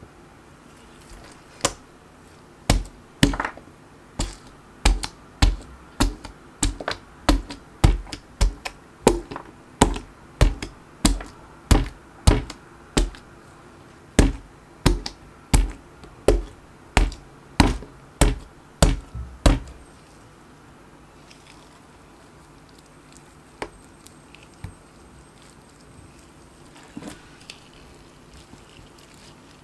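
Bottom of a mug pounding lipsticks pressed into slime on a tabletop: around thirty heavy thuds, about two a second, stopping about twenty seconds in. A few faint knocks follow.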